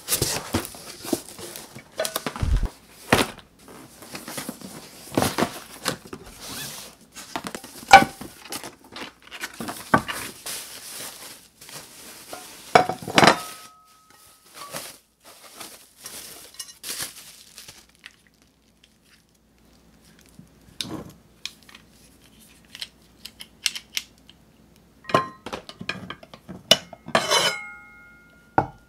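Unpacking a new Dogado cookware set: a cardboard box opened and plastic wrapping rustled, with pans knocking, then pans and glass lids clinking together near the end, some clinks ringing briefly.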